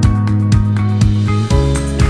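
Background music with a steady beat and sustained bass notes, the chords changing about one and a half seconds in.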